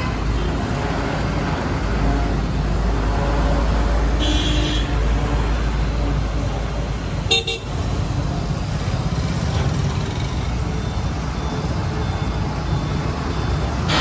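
Steady low diesel-engine rumble of Preet 987 combine harvesters driving past in a convoy, mixed with road traffic. Short vehicle horn toots come about four seconds in and again about seven seconds in.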